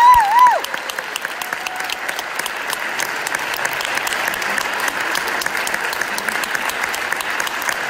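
Concert audience applauding steadily, with a dense patter of many hands clapping. A loud whistle that rises and falls sounds over the clapping in the first half second.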